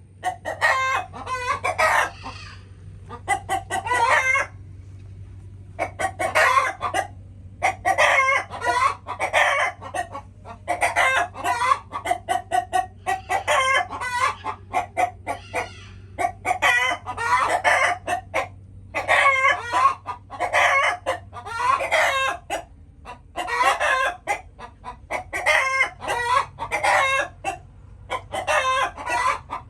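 Chickens clucking and calling in repeated bursts, each lasting about a second or two, over a faint low steady hum.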